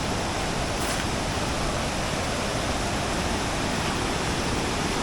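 Waterfall rushing steadily, a constant roar of falling and tumbling water.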